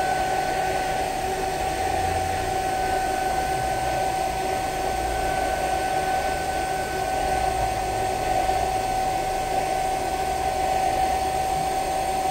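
Hair dryer blowing steadily, a constant whine over the hiss of the airflow, heating a phone's back cover to soften its double-sided adhesive tape.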